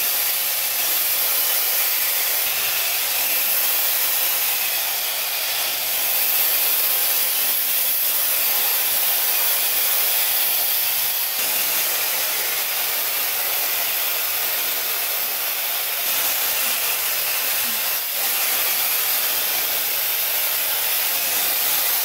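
Skymoon high-speed hair dryer blowing strongly and steadily, an even rushing hiss, shifting slightly in loudness as it is moved over wet hair.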